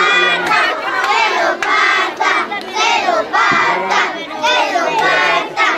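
A group of children shouting and chanting together, many high voices overlapping in a sing-song pattern, with a few hand claps.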